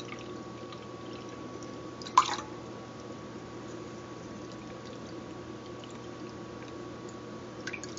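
Vegetable broth being poured and dribbling out of a can punctured on both sides into a measuring cup, with one sharp knock about two seconds in.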